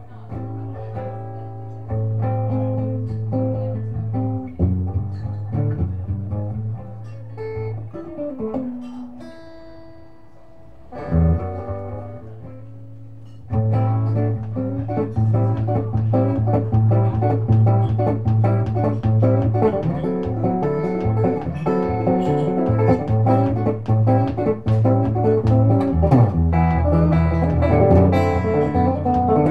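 Amplified steel-string acoustic guitar played solo, picking notes and chords at first. About a third of the way in it eases into a quieter passage of a few held notes, then from about halfway it settles into a louder, steady strummed rhythm.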